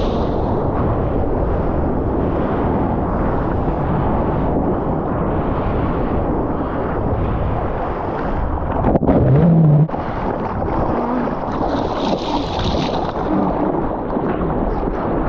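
Loud rumbling wind buffeting the microphone over the roar of breaking surf, with a brief louder burst about nine seconds in.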